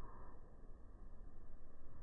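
Quiet, steady low background rumble with no clear event; a brief soft sound at the very start.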